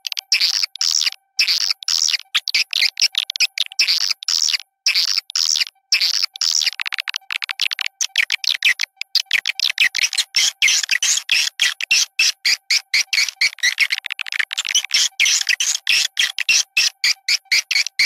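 Swiftlet lure call: rapid, dense twittering chirps of edible-nest swiftlets in a looped playback recording, made to draw swiftlets into a nesting house. A faint steady tone runs underneath.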